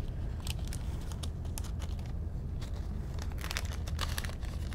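Crinkling and rustling of packaging as a sterile suction catheter is handled in gloved hands, a scatter of small crackles, over a steady low hum.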